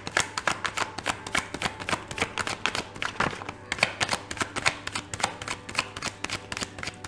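A deck of tarot cards being shuffled by hand: a quick, even run of soft card slaps, several a second.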